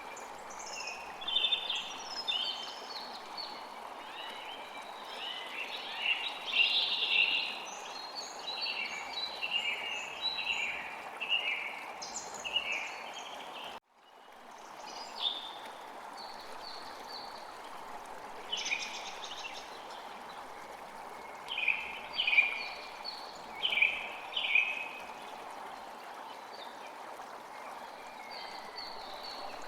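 Wild birds calling and chirping in short phrases over a steady rushing natural background. The calls come thickest in the first half and again about two-thirds of the way through. About halfway through, the sound cuts out for a moment and fades back in.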